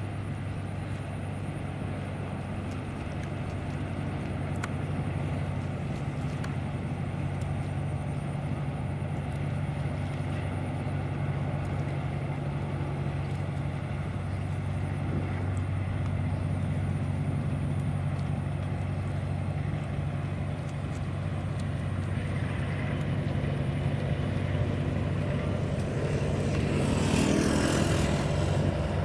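Diesel locomotive hauling a passenger train, its engine drone steady and low, growing louder near the end as the train comes close.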